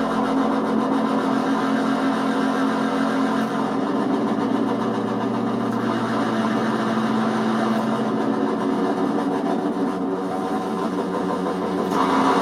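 Buzzy, engine-like droning tones from a homemade 555-timer polyphonic keyboard synth, its output used as a pseudo control voltage for other analog modules. A lower tone joins about four seconds in and drops away around eight seconds, and a brighter note comes in near the end.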